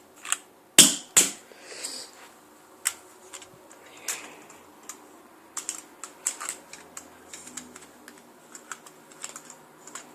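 Plastic clicks and knocks from an airsoft gun being handled, as a part is pushed in that will not stay in place. Two sharp knocks come about a second in, then scattered lighter clicks.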